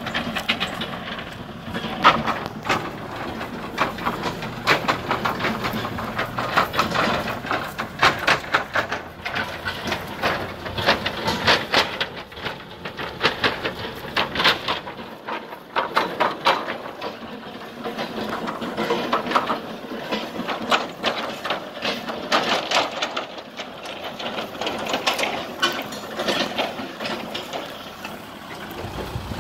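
Kubota M6040SU tractor engine running as it moves over rough grassy ground with a trailer hitched on, under a lot of irregular clattering and crackling. The low engine rumble drops away about halfway through.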